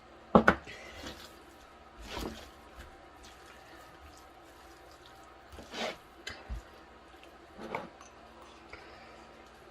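Kitchen containers and sauce bottles handled while flavorings are added to meat: a few short knocks and clatters, the loudest about half a second in, with drips of liquid.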